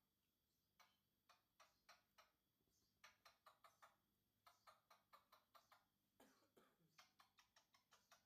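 Near silence broken by runs of faint, sharp clicks, about four to five a second.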